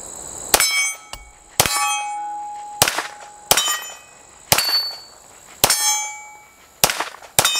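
Springfield Armory 1911 DS Prodigy 9mm pistol firing steel-cased Tula ammunition, about eight shots at roughly one a second, each followed by a ringing clang from a struck steel target.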